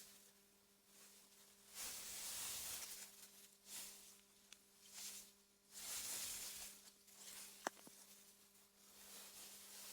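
Soft wind through meadow grass, a faint hiss that swells and dies away in several short gusts over a steady low hum. A single sharp tick about three-quarters of the way through.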